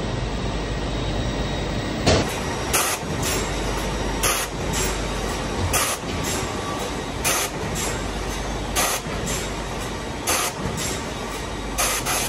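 Grecon Dimter OptiCut S 90 XL optimizing cross-cut saw line running with a steady machine noise. From about two seconds in come about a dozen short, sharp hisses at uneven intervals, from the compressed-air pneumatics that move and clamp the timber.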